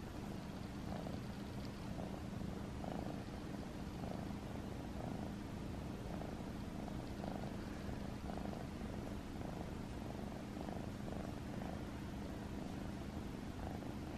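Domestic cat purring steadily close to the microphone, the purr swelling in an even rhythm about every two-thirds of a second.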